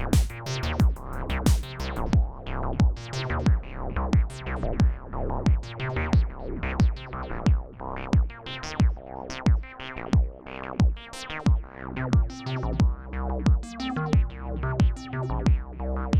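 Acid-style techno played on a Roland TR-8 drum machine and a Roland JU-06A synthesizer: a steady kick drum about twice a second under a rhythmic line of short, quickly decaying synth notes.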